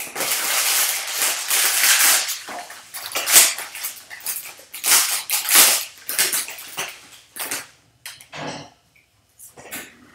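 Foil wrapper of a 2020 Bowman Draft Super Jumbo trading card pack crinkling and tearing as it is pulled open by hand. It goes on in irregular swells for about seven seconds, then thins to a few short rustles and clicks.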